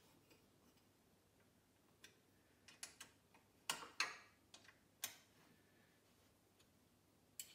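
A handful of short, sharp clicks and light knocks at irregular intervals: a hand tool working on the nuts that clamp the Shapeoko CNC router's aluminium extrusions as they are tightened.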